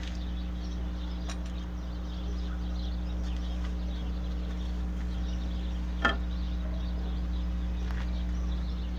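A steady low hum with a few faint knocks, one sharper knock about six seconds in.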